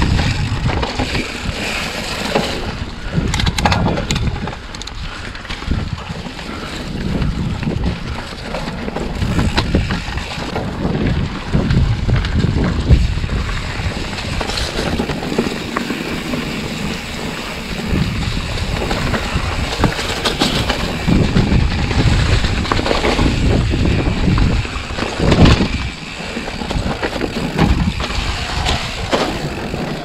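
Trek Fuel EX 8 mountain bike ridden along a trail: wind buffeting the microphone and the tyres rolling over the ground, with short knocks and rattles from bumps now and then.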